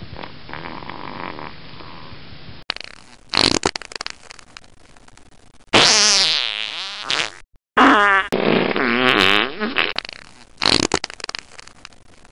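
A series of farts, some short and some drawn out, each a buzzing tone that wavers in pitch. The loudest and longest come a little past the middle.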